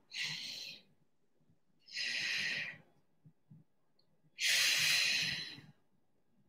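A woman breathing hard into a close microphone while exerting: three separate breaths about a second long each, the last one the loudest.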